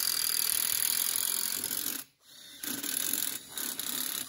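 Cordless drill boring a hole through a metal mounting plate: it runs for about two seconds, stops briefly, then runs again until near the end.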